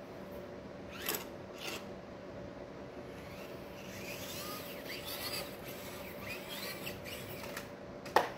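Micro RC crawler (Axial SCX24) driving over rock and brick: its small electric motor and gears whine in short rising and falling spurts, with a couple of clicks about a second in and a sharp knock near the end.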